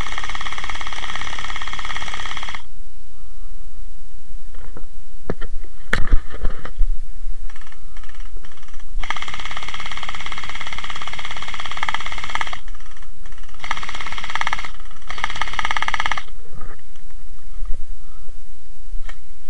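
Electric gel blasters firing on full auto, a fast buzzing rattle from the motor-driven gearbox. There is one burst at the start, a long burst of several seconds about halfway through, then two short bursts. A few sharp knocks come around a third of the way in.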